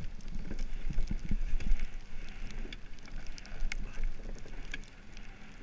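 Monotype XV iceboat running over snow-covered lake ice: a steady hiss of the runners with scattered clicks and knocks from the hull and rigging, and wind rumbling on the microphone. A few heavier thumps in the first two seconds; the noise grows quieter near the end.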